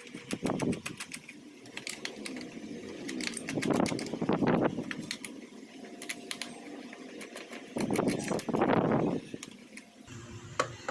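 Clicks, rattles and scraping of a small plastic radio case being handled and opened by hand and with a screwdriver, with three longer scraping bursts among the clicks.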